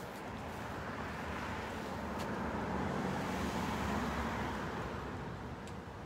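A motor vehicle passing by: its engine and tyre noise swells to a peak about halfway through and fades away.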